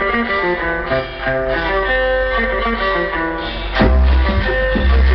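Recorded dance music with a guitar-led melody, played loud through a sonidero sound system. A heavy bass line comes in about four seconds in.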